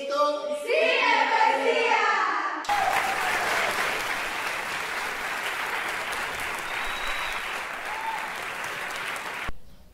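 Voices of a group calling out for the first few seconds, then a group of people clapping and applauding, which cuts off suddenly near the end.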